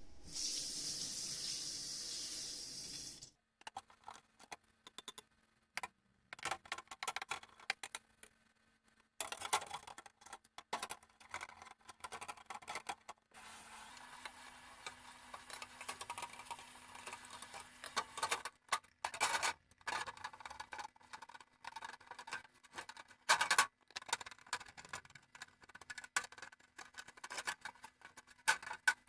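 Tap water running for about three seconds, then it stops and is followed by scattered clicks, knocks and rustling of range hood parts being handled and washed by hand.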